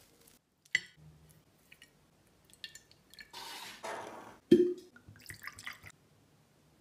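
A small stemmed glass set down on a countertop with one sharp knock about halfway through, just after a short hiss, with a few light clicks and taps around it.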